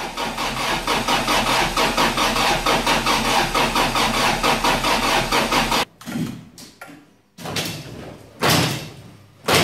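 A Toyota 3S-GE four-cylinder engine on a test stand being cranked by its starter motor, with an even chugging of about seven to eight pulses a second and no sign of catching. It cuts off abruptly about six seconds in, followed by several short, loud bursts.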